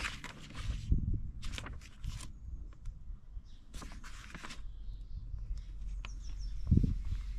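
Paper rustling as a printed instruction booklet is handled and its pages are turned, in several short bursts, with a short low sound near the end.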